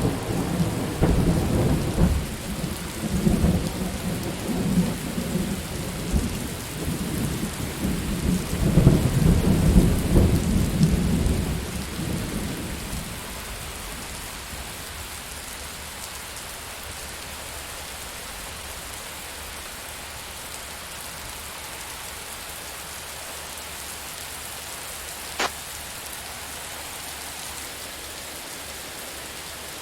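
Thunder rumbling through heavy rain and dying away about twelve seconds in, leaving steady rain falling. A single sharp click comes near the end.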